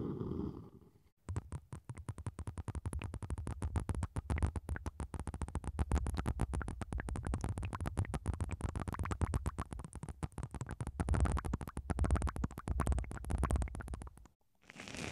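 Syringes of blue liquid worked right at the ears of an ear-shaped ASMR microphone, giving a dense run of rapid crackling clicks close to the mic. It starts about a second in, after a brief low rubbing from wooden spoons on the mic, and cuts off just before the end.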